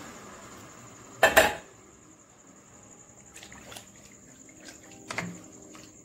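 Spatula stirring a thin cornflour-water gravy in a karahi: one loud, brief clatter of spatula on pan about a second in, then light taps and scrapes against the pan over faint liquid sloshing.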